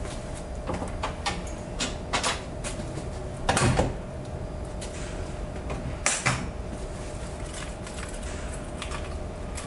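Steel bonnet of a Toyota AE86 Sprinter Trueno closed with one loud slam about three and a half seconds in, followed a few seconds later by a smaller thump as it is pressed shut, with light clicks and knocks before it.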